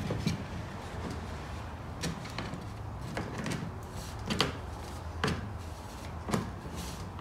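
A series of wooden knocks, about one a second, as the top board of a four-board stool is pressed and tapped down by hand onto its legs, seating the slot-together joints that need no nails, screws or glue.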